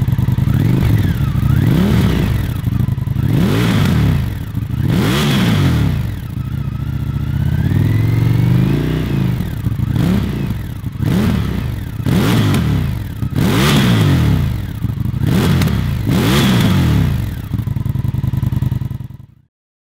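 Indian FTR 1200's V-twin running through a Zard slip-on exhaust, blipped about a dozen times in quick succession. The pitch rises and falls with each rev, with one longer, slower rev around the middle. The sound cuts off suddenly just before the end.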